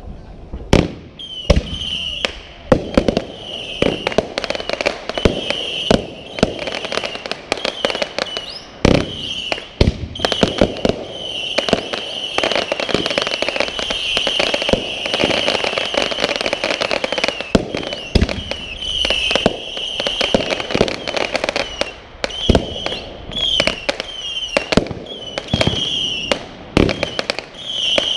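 Aerial fireworks going off in a dense barrage: sharp bangs and pops several times a second, one after another, with a constant crackle between them.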